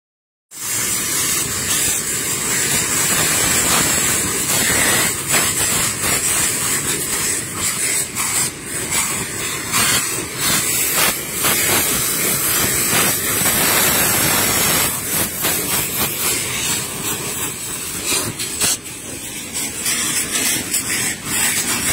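Many hand-held saites, gunpowder-packed cardboard-tube rockets, hissing at once as they spray sparks: a loud, continuous hiss broken by frequent sharp cracks. It starts suddenly about half a second in.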